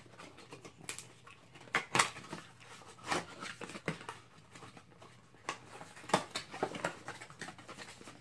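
Thin printed cardboard box being opened by hand: its tab pulled and flaps folded back, giving irregular clicks, taps and rustles of cardboard, a few sharper snaps among them.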